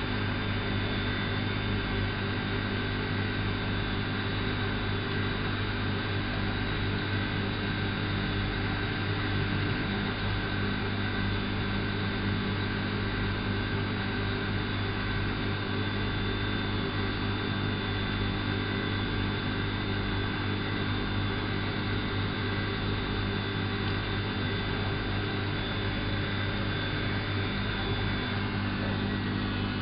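Elin WM26AAA washing machine running with a steady, unbroken motor hum, a constant low drone under a few steady higher tones; the tones shift slightly at the very end.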